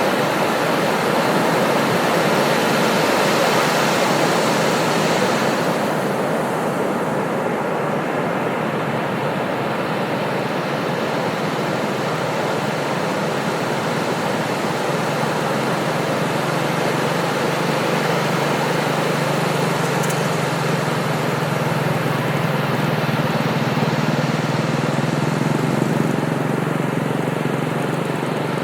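Ocean surf washing steadily on the beach, the high hiss strongest in the first few seconds as a wave breaks. About halfway in, an engine's steady drone joins and grows a little louder toward the end.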